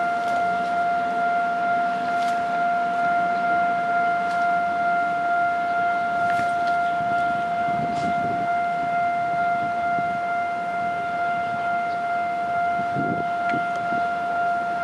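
Railway level-crossing warning alarm sounding one steady, unbroken high tone as a train approaches the crossing.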